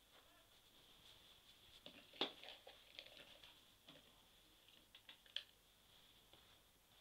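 Near silence with a few faint clicks and taps of handling, the loudest about two seconds in and again just past five seconds, over a faint steady high-pitched whine.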